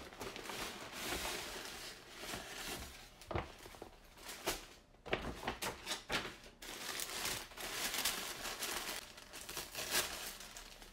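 Paper packaging crinkling and rustling as a parcel is unwrapped, with many sharp crackles; white tissue paper is being pulled open near the end.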